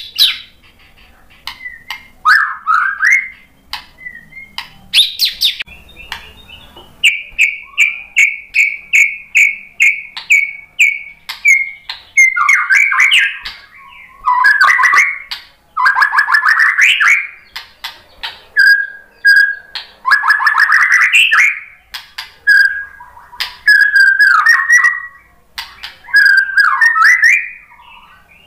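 White-rumped shama (murai batu) singing a loud, varied song: a run of quick repeated whistled notes, rapid chattering trills and sweeping phrases, with sharp clicks between them.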